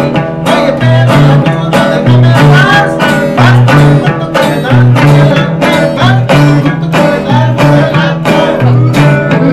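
Live guitar trio, two acoustic guitars and an electric guitar, playing an upbeat strummed tune: a steady strumming rhythm over bass notes that step back and forth.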